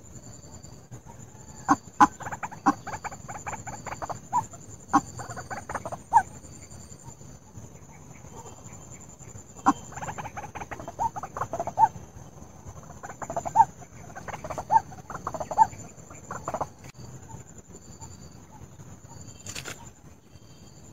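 White-breasted waterhen (ruak-ruak) calls, a recording used as a trapping lure: two bouts of rapid repeated notes, one near the start and a longer one in the middle, with a short lull between.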